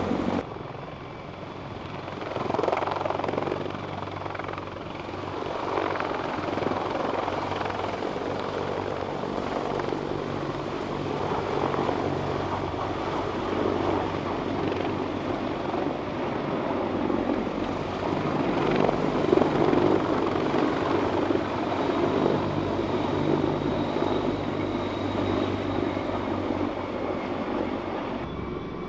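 Several large military helicopters running, a steady rotor and turbine hum under a rushing rotor noise that swells and fades several times.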